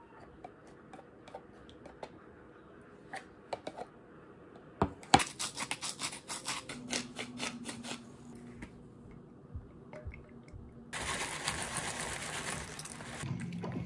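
Handling noises from making a yogurt bowl: a spoon scraping yogurt out of a tub, then a hand spice grinder twisted over the bowl, giving a quick run of clicks for about three seconds. Near the end, granola is poured from a plastic bag, a rustling, pattering hiss lasting about two seconds.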